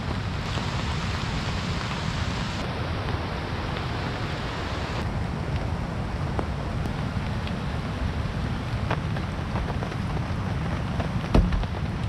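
Steady rain falling, with a deep rumble underneath and scattered sharp ticks of drops striking nearby surfaces. A single louder knock comes near the end.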